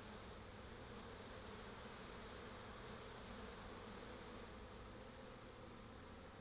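Steady buzzing hum of a mass of Italian honey bees being installed into a hive.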